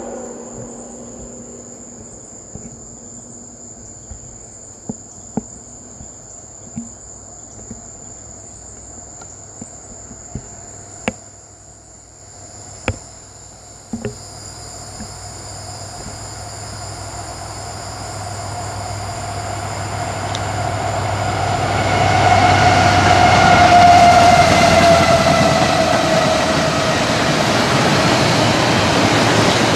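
CSX double-stack intermodal freight train approaching and rolling past, its rumble building from about halfway through and loudest a few seconds before the end. Insects chirp steadily in the first half, with a few sharp clicks.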